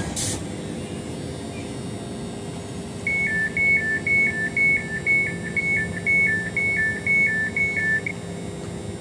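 Class 345 Elizabeth line train's door-closing warning: a high two-tone beep alternating about twice a second. It starts about three seconds in and lasts about five seconds, over the standing train's steady hum.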